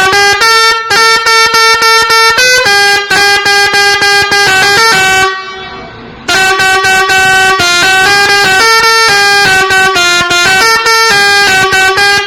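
Telolet horn, a multi-note horn, playing a quick tune of short notes stepping between a few pitches. It stops for about a second partway through, then starts the tune again.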